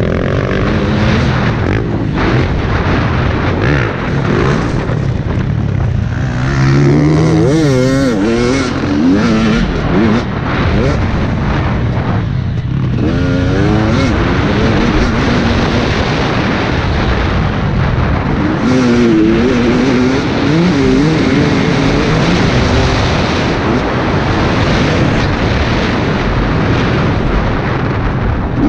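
KTM 250 EXC TPI single-cylinder two-stroke engine revving up and down under hard riding, the revs climbing and dropping in waves several times, over constant wind rush on a helmet-mounted camera.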